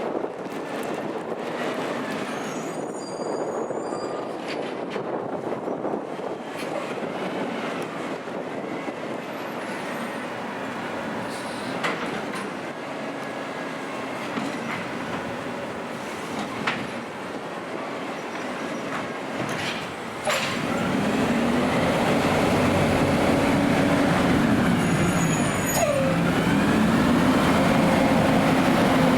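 AutoReach automated side-loader garbage truck running, with wind on the microphone and a few clicks and knocks. About two-thirds of the way through it gets louder and the engine pitch rises and falls repeatedly, as the truck revs to work the arm's hydraulics.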